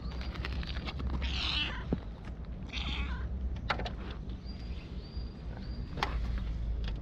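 Tabby cat meowing twice, about a second in and again near three seconds. A few sharp clicks follow.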